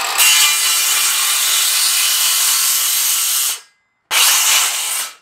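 Milwaukee cordless circular saw cutting through a 2x6 pine board, with a steady, loud cutting noise. It breaks off about three and a half seconds in and starts again half a second later for a last stretch of cutting.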